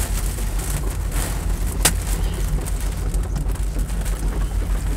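Tornado winds and rain buffeting the armored storm-chase vehicle, heard from inside the cab as a steady loud low rumble with a hiss over it, with a single sharp knock about two seconds in.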